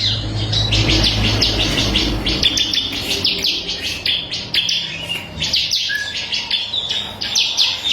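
Ciblek kristal (bar-winged prinia) singing a fast, unbroken run of short, sharp high chirps, several a second. A low hum sits under the first two and a half seconds.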